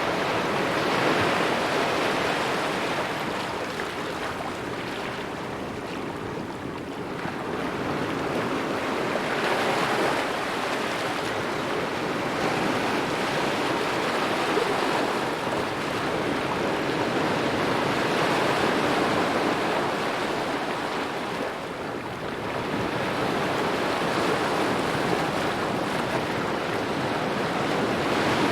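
Small ocean waves lapping at the shore, a steady wash of water that swells and eases every several seconds.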